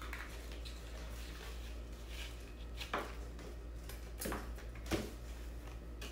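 Scissors cutting thin cereal-box cardboard: a few separate short snips, the clearest about three, four and five seconds in.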